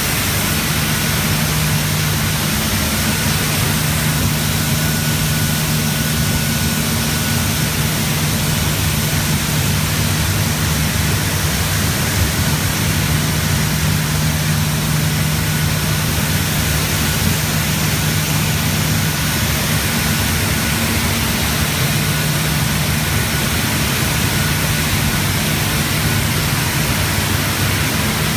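Paper machine running at production speed, about 810 m/min: a loud, steady drone of a low hum under an even hiss, with a faint thin high whine.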